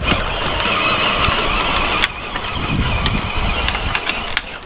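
Battery-powered Barbie Jeep ride-on toy driving on a dirt and gravel driveway: its electric drive motors and gearboxes whining steadily as the plastic wheels roll over the gravel. There is one sharp click about two seconds in.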